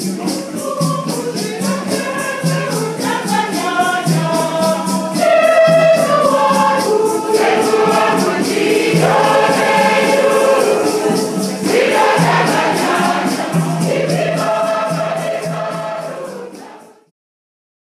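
A choir singing with shakers keeping a quick, steady beat; the music fades out and stops near the end.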